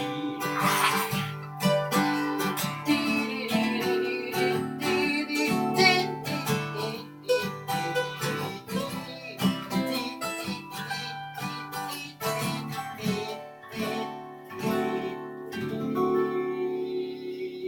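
Acoustic guitar playing an instrumental passage, a quick run of picked and strummed notes over a steady bass, settling into longer held chords near the end.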